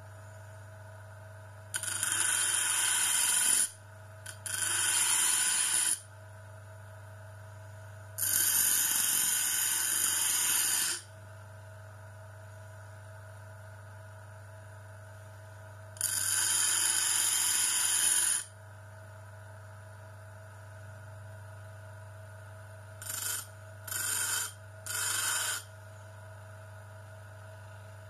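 A motor-driven grinder running steadily with a hum, and a workpiece pressed against the abrasive wheel in repeated grinding passes of a few seconds each, with a few shorter touches near the end.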